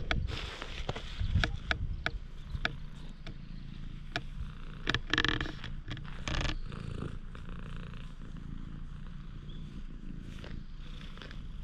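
Cat purring steadily while being stroked, with scattered clicks and rubbing noises in the first half.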